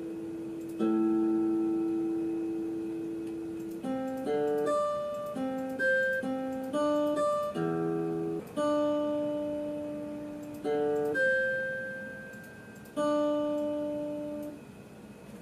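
Guitar-like plucked-string sample played note by note from a Native Instruments Maschine's pads: a halting run of single notes and short chords, each starting sharply, some left to ring down and others cut off short, quicker in the middle.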